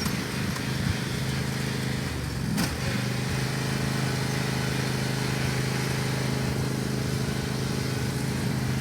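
Lawn mower engine running steadily at an even speed, with one brief click about two and a half seconds in.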